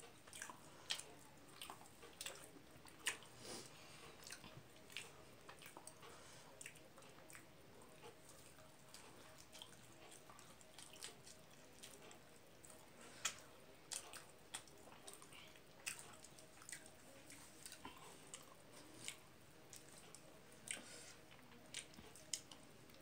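A person eating rice and curry with the hand: wet chewing and lip smacks heard as scattered short, sharp clicks, a few of them louder, over a faint background.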